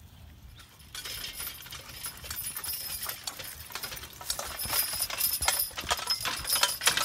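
Metal rattling and clinking from a team of draft horses' harness and a horse-drawn harrow's tines and chains, starting about a second in, with a few horse hoof clops.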